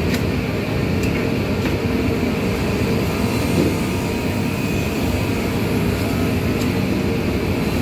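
Steady machinery noise in a workshop, a constant low rumble with a few faint clicks of handling over it.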